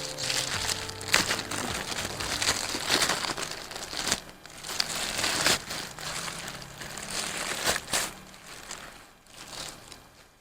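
Packaging being crinkled and rustled by hand, with many sharp crackles, growing fainter near the end.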